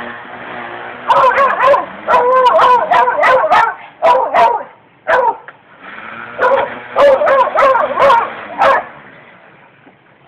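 A dog barking and yelping in rapid bursts at a string trimmer, falling quiet about nine seconds in.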